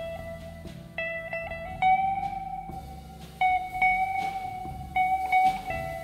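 Live instrumental band of guitar, organ, upright bass and drums playing: a melody moves in long held notes over walking bass and drums, with cymbal hits scattered through.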